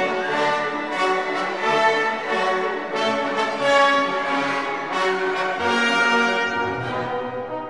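Orchestral background music with brass, French horn to the fore, over strings; lower brass notes come in near the end.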